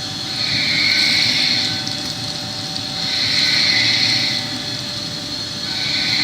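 Industrial machinery running steadily, with a hum and a higher hiss that swells and fades about every three seconds.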